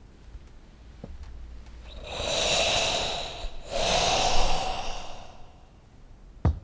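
A man breathing heavily: two long, loud, hissing breaths one after the other, like a deep sigh. A short sharp thump comes near the end.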